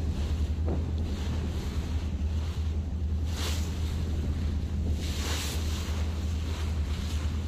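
Wind on the microphone and the wash of sea waves over a steady low hum, with the wash swelling louder about three and a half seconds in and again a couple of seconds later.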